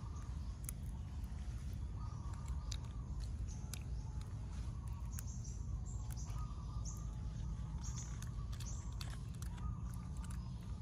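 Outdoor ambience: birds chirping again and again over a steady low rumble, with scattered sharp clicks.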